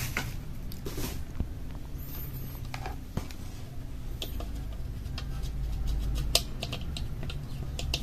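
A steady low hum with scattered light clicks and taps over it.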